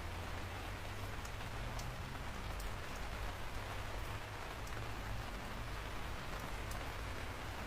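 Steady rain falling, an even hiss with a low rumble beneath it and single drops ticking sharply here and there.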